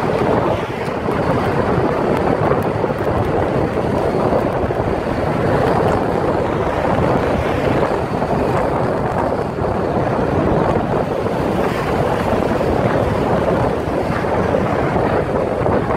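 Steady wind rushing over a camera microphone held out of a moving car's window, mixed with the car's road noise.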